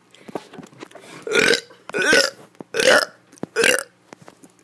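A kid burping four times in a row, each burp short and loud, a little under a second apart.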